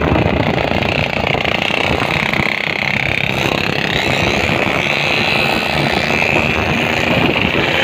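Motorcycle engines running at cruising speed, heard from a moving motorcycle riding in a group, with a steady loud rumble and a hiss that rises and falls slightly.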